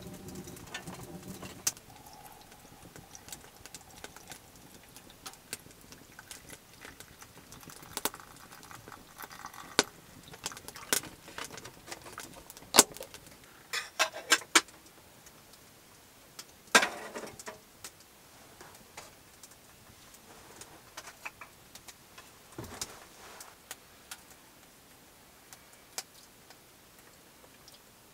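Scattered sharp clinks and knocks of a steel kettle, metal cup and fork being handled, with long gaps between them.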